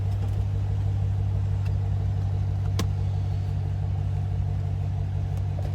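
A car engine idling steadily with a low, even hum, and a single click about three seconds in.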